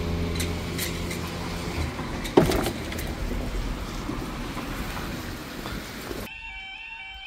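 A motor vehicle's low engine hum with traffic noise and a sharp knock about two and a half seconds in. Near the end, after an abrupt cut, a level crossing's electronic warning alarm starts sounding, a repeating pattern of stepped tones that signals the crossing is closing for a train.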